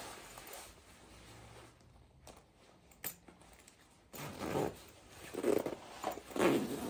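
Down puffer jacket's front zipper being engaged and zipped up, with the quilted nylon shell rustling. A single sharp click about three seconds in, then louder, irregular swishes of zipper and fabric in the second half.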